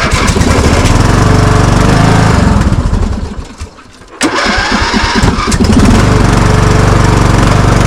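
Riding lawn mower engine cold-starting on choke: it runs for about three seconds, nearly dies, then catches again with a sharp bang a little after four seconds and settles into a steady run. It is running rough in the cold.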